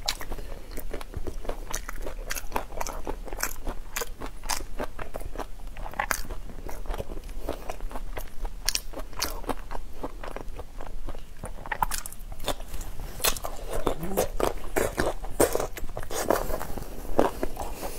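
Close-miked eating of seafood in chili-oil marinade: wet biting, chewing and sucking, with a dense, irregular run of sharp mouth clicks and smacks.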